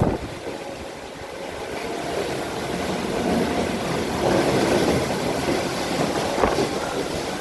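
Strong gusty wind with heavy rain: a steady hiss of rain and a rumble of wind that rises and falls with the gusts, with one short knock about six and a half seconds in.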